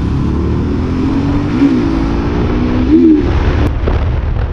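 Motorcycle engine running under way, its note rising and dropping briefly twice, over a steady low wind rumble on the microphone.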